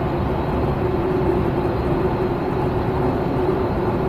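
Steady running noise of a passenger train in motion, heard inside the carriage, with a steady hum under the even rush.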